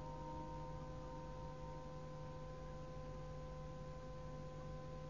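Faint, steady hum and hiss of an old cassette-tape recording, with no voice.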